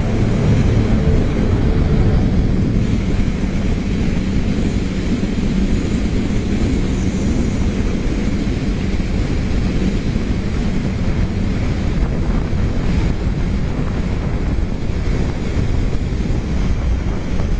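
Heavy wind rushing over the microphone of a motorcycle at freeway speed, a steady loud roar with the bike's engine running underneath.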